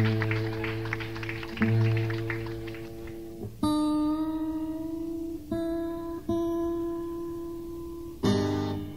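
Solo acoustic guitar: strummed chords left ringing, then, a few seconds in, single clear notes struck one after another and allowed to fade, with another chord strummed near the end.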